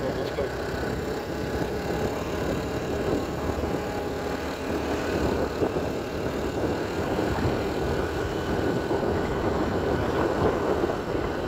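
Motorcycle engine running at a steady cruise, mixed with wind and road noise on the microphone.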